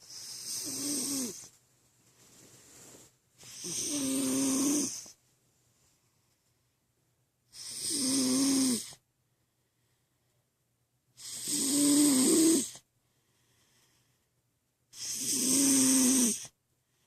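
Snoring: five loud snores about every three and a half seconds, each lasting about a second and a half, with a low buzzing tone under breathy hiss. A fainter, shorter breath comes between the first two.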